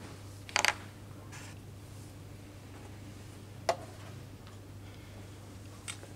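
Sharp wooden clicks and knocks of chess pieces being set down on a wooden board and the chess clock's button being pressed. There is a double click about half a second in, a single sharp click a little past halfway and a fainter one near the end.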